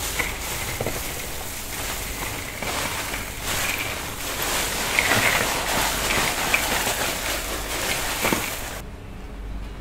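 Chickens sizzling on a charcoal grill: a steady hiss with scattered crackles that cuts off near the end.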